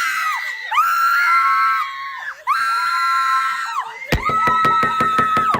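Loud, high-pitched screaming: four long screams in a row, each held steady and sliding off at the end, the last one fluttering rapidly.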